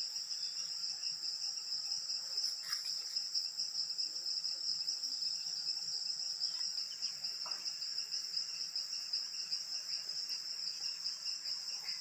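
Steady, high-pitched chorus of insects droning without a break, with a couple of faint short calls over it.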